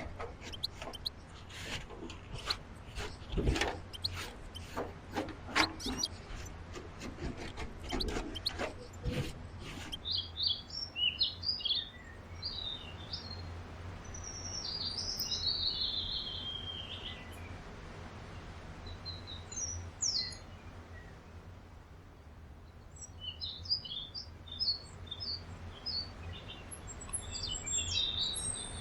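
Small birds chirping in short, high calls that come and go. In the first third these are preceded by a quick run of sharp clicks and knocks.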